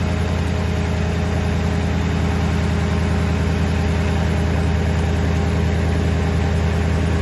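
Toyota Tundra pickup's engine idling steadily after a jump start, running on its own with the boost pack removed, its alternator charging.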